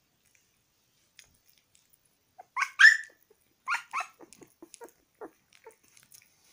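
A young puppy gives a quick run of high-pitched yips about two and a half seconds in, loudest near the third second, then two more about a second later, followed by small wet smacking clicks of licking and chewing at an egg yolk.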